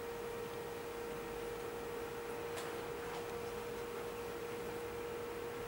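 Steady electrical hum on a single tone, with a faint click about two and a half seconds in.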